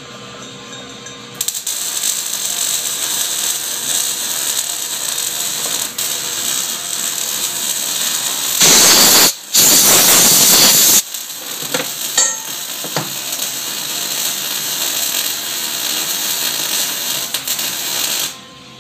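Metal lathe running steadily, starting abruptly and cutting off near the end, with a loud hiss of about two seconds, broken once, about nine seconds in.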